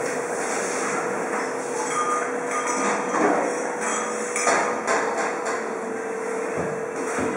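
Metal sausage rack rattling and clanking as it is pushed into a steel smokehouse chamber, then the heavy steel chamber door swung shut with low thuds near the end, over a steady machine hum.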